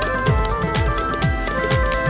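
Background music with a steady beat and a melody over it.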